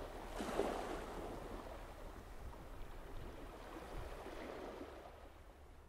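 Steady rushing noise of sea and wind, swelling briefly about half a second in, over a faint low rumble, fading out near the end.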